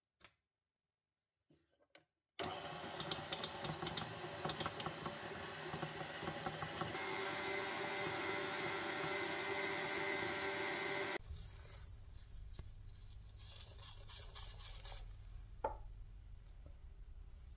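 KitchenAid Artisan stand mixer running with its flat beater, cutting cold butter into flour and grated cheese for pastry dough, with a steady motor sound and the rattle of the beater in the steel bowl. It starts about two seconds in and cuts off suddenly after about nine seconds, leaving a low hum and a few small clicks.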